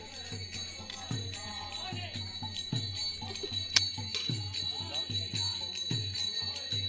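Group singing from a hired singing party, carried along by a drum beating about twice a second and steadily jingling hand cymbals or bells, heard in the background.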